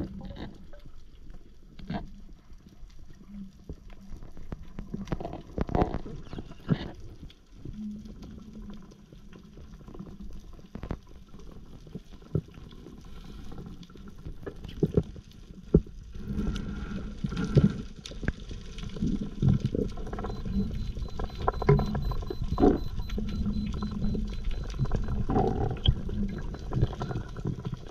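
Water sounds recorded during a spearfishing dive: a steady low rumble with gurgling and scattered sharp clicks and pops, growing louder and fuller about halfway through.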